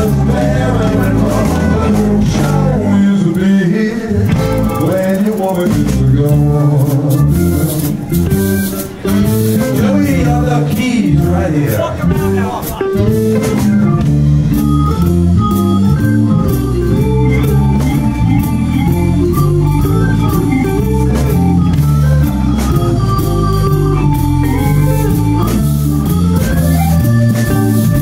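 Live blues band playing a slow blues number, with drum kit and electric guitar.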